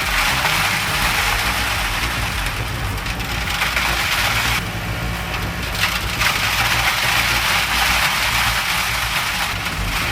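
A heavy shredding machine running, with the continuous crunching and grinding of material being broken up over the steady drone of its engine. The grinding eases for about a second a little under halfway through, then picks up again.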